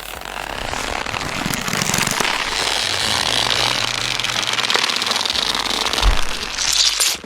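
A continuous, rapid rattling crackle that builds up over the first couple of seconds and then holds steady.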